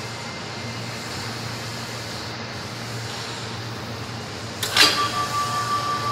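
Electromagnetic brake set to a 3 mm air gap, with a steady low hum. About four and a half seconds in it switches with a sharp metallic clack, followed by a steady high-pitched whine.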